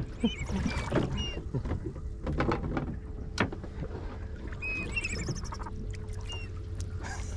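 Steady low rumble of an idling boat with a faint constant hum, under knocks and rustles as a fishing line with two sand dabs is hauled up by hand. A few short high squeaks come through now and then.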